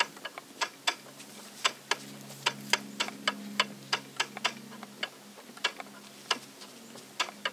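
Small upright wooden spinning wheel being treadled while alpaca fiber is spun into yarn, giving an uneven run of sharp clicks, about two to three a second. A faint steady low hum lies underneath.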